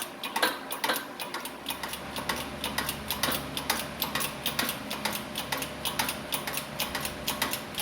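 Ratchet wrench clicking in quick, irregular runs as the forcing bolt of a bearing removal tool is cranked down on a steering knuckle to press out the hub bearing.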